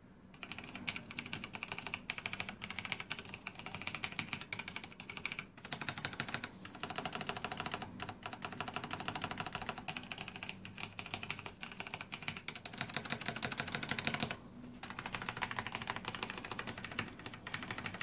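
Fast typing on a Razer BlackWidow mechanical keyboard with Kailh Orange tactile switches: a dense, rapid stream of key clacks that starts about half a second in, breaks off briefly near the end and resumes.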